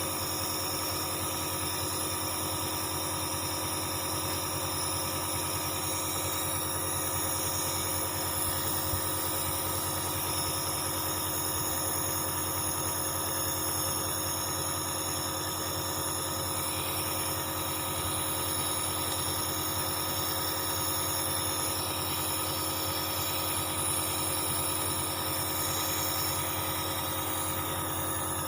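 Dr Trust compressor nebulizer's compressor running, a steady even hum with buzz.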